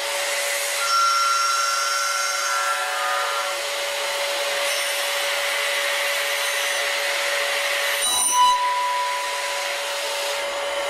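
CNC milling machine cutting titanium with an end mill: a steady whine over a hiss, with higher cutting tones that come and go. About eight seconds in there is a short louder burst, and the steady tone briefly breaks off.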